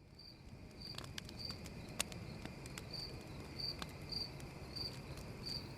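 Night ambience fading in: crickets chirping steadily, about two chirps a second, over the pops and crackles of a campfire and its low rumble.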